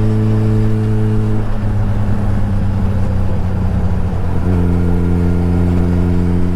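Suzuki Hayabusa's inline-four engine running at a steady speed under way. Its note changes about a second and a half in, then settles on a new steady pitch about four and a half seconds in.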